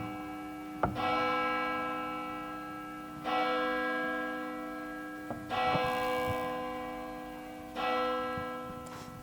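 A church bell tolling slowly, struck four times about every two and a half seconds, each stroke ringing on and fading into the next. It is the long-silent bell of the legend ringing at last.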